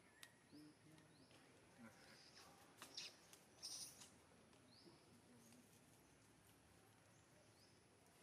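Near silence with faint, short, high bird chirps repeating every second or so, and a couple of brief louder sounds about three to four seconds in.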